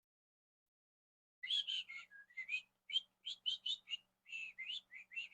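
A person whistling a quick tune into the microphone: short gliding notes, starting about a second and a half in after total silence.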